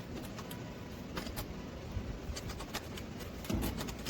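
Irregular light metallic clicks and scrapes of a socket wrench working a carburetor nut loose, with a low rumble underneath.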